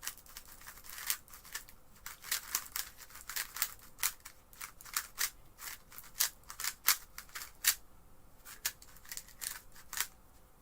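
An X-Man Tornado V2 3x3 speedcube being turned by hand: quick plastic clicks and snaps of the layers, in irregular runs.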